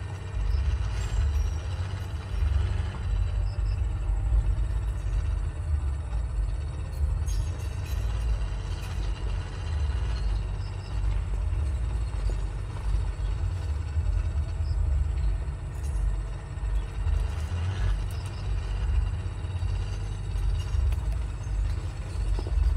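Wind buffeting the microphone: a low, irregularly fluctuating rumble.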